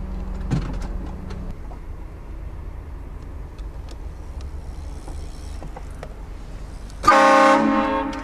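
Steady low rumble of a moving vehicle, then about seven seconds in a vehicle-mounted train horn blasts for about a second, a loud chord of several tones at once that tails off.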